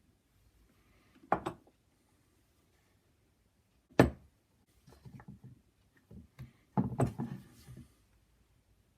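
Knocks and clatter from handling a Mini Lopper (a hand lopping tool) and its parts while its annular buffers are replaced: one sharp knock, a louder single knock a few seconds later, then a run of smaller clicks and knocks.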